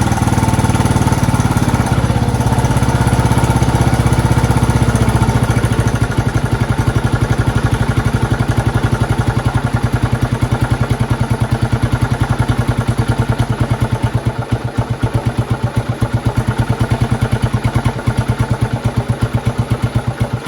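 Honda TLR200's single-cylinder four-stroke engine idling with an even, steady beat; the low rumble eases after about six seconds and the individual firing pulses stand out more.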